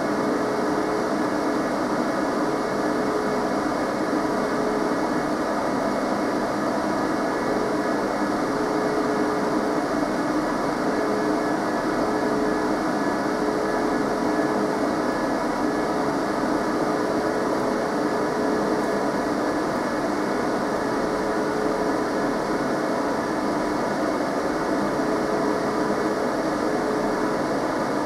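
Cooling fans of a Bay Networks 28115/ADV network switch running during boot-up: a steady, loud whir with a faint hum tone that drops in and out.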